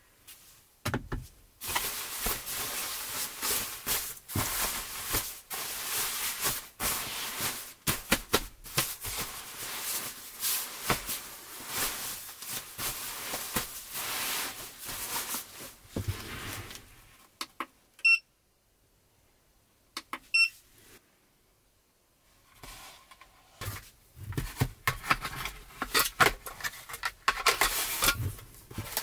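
Nylon padded jacket rustling as it is handled and folded, then two short electronic beeps about two seconds apart, followed by light handling noises and clicks of objects being set down.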